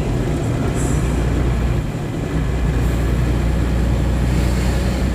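Diesel engine of a dump truck running under way, heard from inside the cab as a steady low drone. It dips briefly about two seconds in, then comes back stronger and holds steady.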